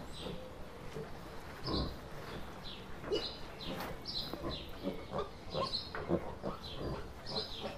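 Wild boar feeding close up, snuffling and chewing food off the ground with many short, irregular crunches.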